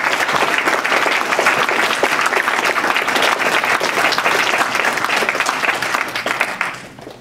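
Audience applauding; the clapping dies away near the end.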